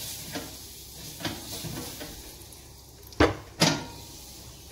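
A metal kitchen utensil knocking twice against cookware, two sharp clanks about half a second apart a little past the middle, over low kitchen clatter.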